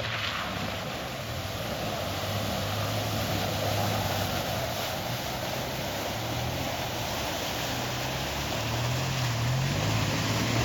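River water rushing steadily, with a low hum underneath that steps up and down in pitch near the end.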